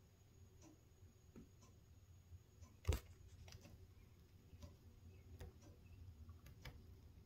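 Near silence: indoor room tone with faint scattered clicks and one sharper click about three seconds in.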